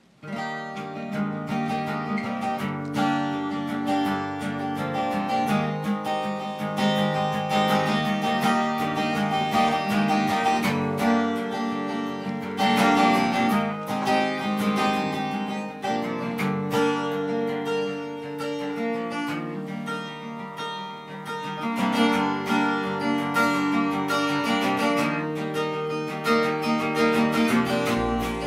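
Solo acoustic guitar played live, chords and notes ringing in a steady unhurried flow, starting suddenly at the very start.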